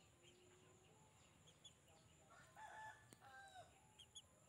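A rooster crowing faintly once, a drawn-out call in a few stepped parts, about halfway through, with a sharp click during it and a few faint high bird chirps.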